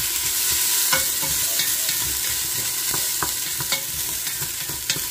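Minced ginger sizzling in a thin film of hot oil in a stainless steel pot, sautéed until fragrant. A wooden spoon stirs and scrapes across the pot bottom, with a few light knocks against the metal.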